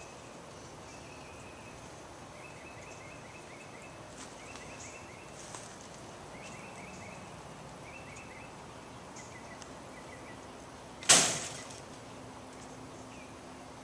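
Quiet outdoor background with short, rapid, high-pitched chirping trills repeating every second or so, and one sharp, loud knock about eleven seconds in that rings off quickly.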